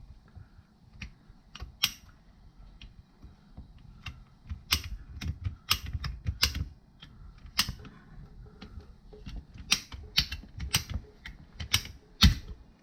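Irregular sharp clicks and light knocks as a water pipe is cut with a hand pipe cutter, with a dull thump near the end.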